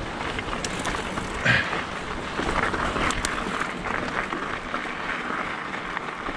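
Mountain bike rolling along a dry dirt and rock trail: steady tyre noise with small knocks and rattles from the bike over the bumps, and a louder knock about a second and a half in.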